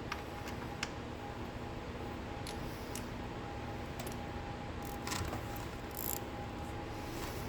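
Scattered light clicks and taps of hand tools and metal parts being handled, about eight separate ones a second or so apart, over a steady background hum.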